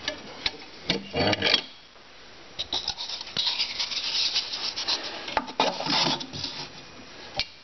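Hand-handling noise as the air cannon is reloaded: a cardboard toilet-roll round rubbing and scraping as it is worked into the metal breech fitting, with a few sharp clicks and knocks from the fittings.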